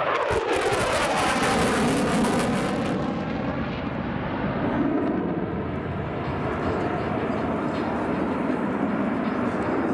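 F-16 fighter jet's single jet engine passing close, loud and crackling, with a downward-sweeping whoosh for the first three seconds or so. Then the crackle drops away, leaving a duller, steady jet rumble as the aircraft pulls away.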